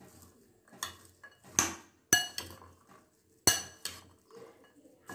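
Metal spoon stirring a chopped salad of sprouted chickpeas and peas in a glass bowl. The spoon clinks against the glass about six times at an uneven pace, each with a short bright ring.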